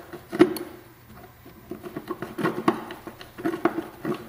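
Handling clicks and scrapes as a screw is fitted into the air filter bracket in a Honda ATV's airbox, with one sharp knock about half a second in.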